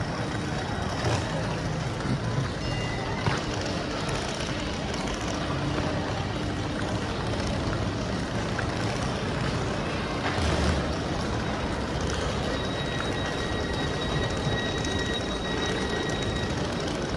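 Steady rumble and rush of an underground railway platform with a double-deck passenger train standing at it. A high steady tone sounds for a few seconds near the end.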